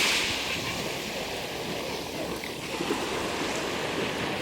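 Black Sea waves on the shore: the hiss of a spent wave fades over the first second, then gentler surf washes steadily between breaks.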